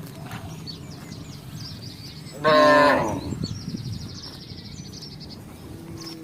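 A cow gives one short, loud moo about two and a half seconds in.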